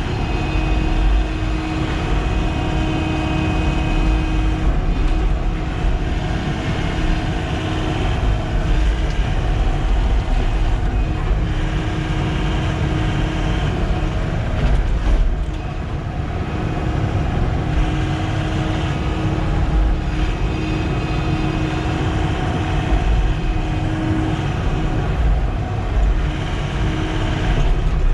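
Sany SY95 excavator's diesel engine running steadily under working load, swelling and easing every few seconds as the machine works.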